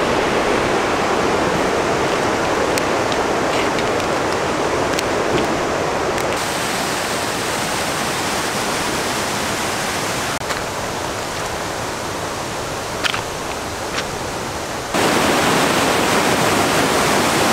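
Rushing water of a mountain creek and waterfall, a steady wash of noise whose level changes abruptly a few times, with a few faint ticks.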